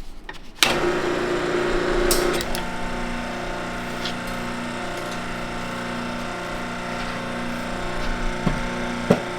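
A shop machine's motor starts abruptly about half a second in and runs on with a steady, even hum. Two sharp metallic clicks come near the end.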